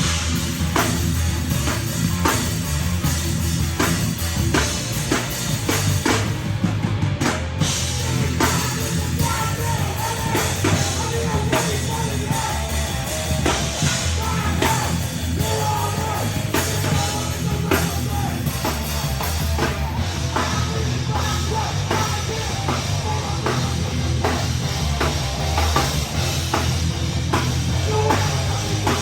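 A live heavy rock band playing loud, with a drum kit pounding out a fast beat.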